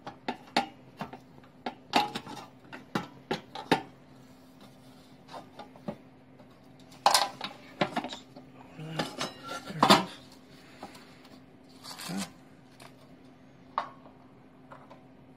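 Metal parts of a kerosene heater clinking and clattering as they are handled and fitted back together: irregular light clicks and knocks, with two louder clanks about seven and ten seconds in, over a faint steady hum.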